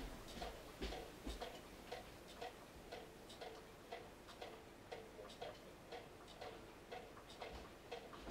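Faint, steady ticking, about two ticks a second, each tick with a brief ring.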